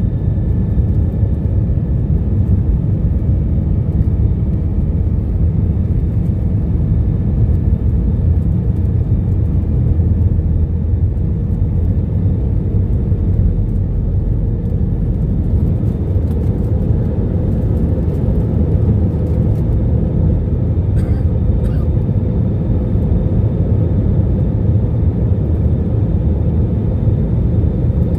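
Steady rumble of a jet airliner's engines and airflow heard inside the passenger cabin, even and unchanging, with two faint clicks a little after the middle.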